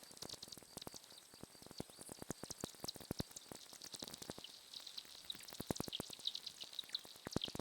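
Irregular dry clicks and crackles, several a second, with short high chirps and squeaks that come more often near the end: a sparse sound collage of clicks and chirps.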